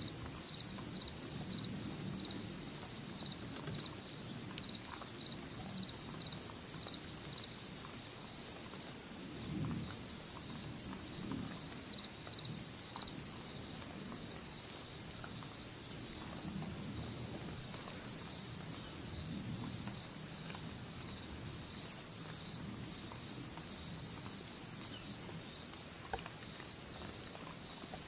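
Steady chorus of insects, a continuous fast-pulsing high trill, over an irregular low rumble.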